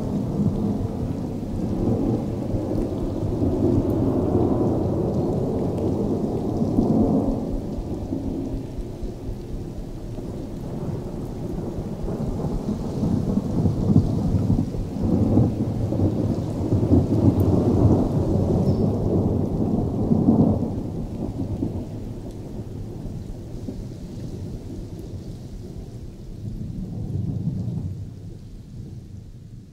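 A low, thunder-like rumble that swells several times and then dies away near the end.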